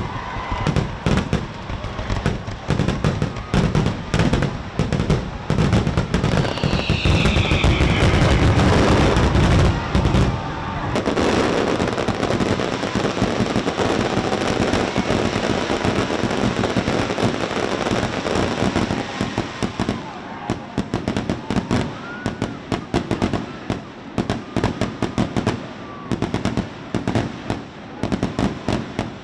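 Fireworks display: a dense, continuous barrage of bangs and crackling, heaviest and deepest in the first ten seconds, then thinner and more scattered pops.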